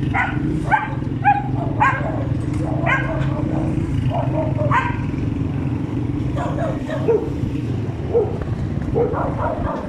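A dog barking and yipping in short repeated calls, more of them in the first half, over a steady low hum.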